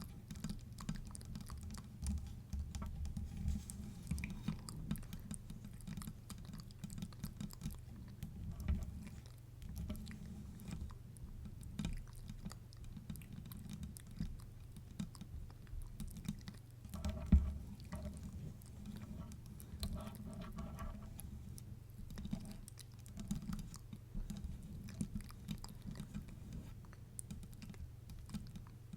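Close-miked ASMR mouth sounds, wet clicks and smacks, mixed with fingertip tapping on a microphone base: many quick, irregular clicks and taps over a steady low hum. A sharper knock comes a little past halfway, among a few brief pitched sounds.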